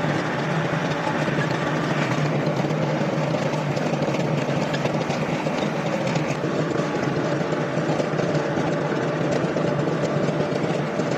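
Tractor diesel engine running steadily under way, a constant low hum with no change in speed.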